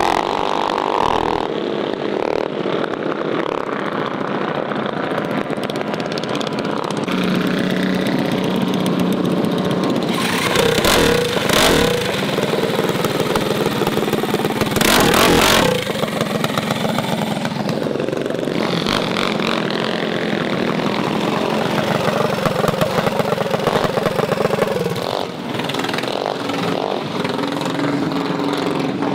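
Mini bike engines running and revving, their pitch rising and falling, with two louder rev-ups near the middle.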